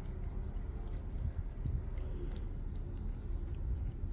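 A cat licking puree from a squeeze-tube treat held in a hand: quick little wet ticks, about three or four a second, over a steady low rumble.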